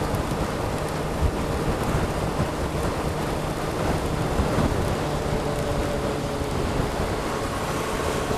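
Wind and rain rushing over a helmet-mounted camera on a Suzuki Bandit motorcycle cruising at motorway speed in heavy rain. The bike's inline-four engine drones at a steady pitch underneath.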